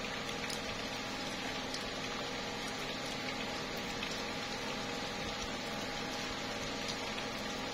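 Slow, steady rain falling on tree leaves, an even patter with occasional separate drop ticks.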